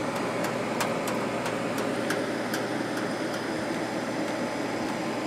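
Sharp 10,500 BTU window air conditioner running steadily on fan only, with its compressor off: a smooth, even whoosh of air with a low steady hum and faint irregular ticks.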